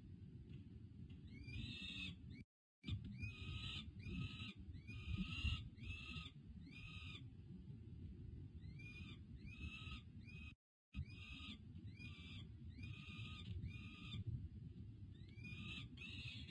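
Peregrine falcon fledgling begging while being fed, a run of short, insistent wailing calls about two a second, each opening with a quick rising note, in bouts with brief pauses. A steady low rumble of wind or city noise runs underneath, and the sound cuts out completely twice for a moment.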